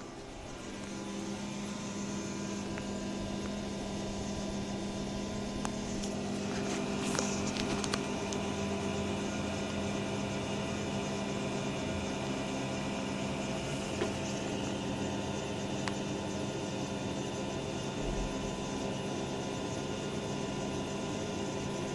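3D printer running a print, a steady hum with several held tones from its motors and fans, with a few faint clicks.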